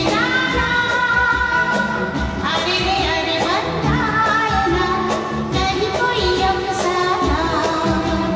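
Hindi film song performed live with a band: a female voice holds long, gliding melodic notes over a steady drum beat.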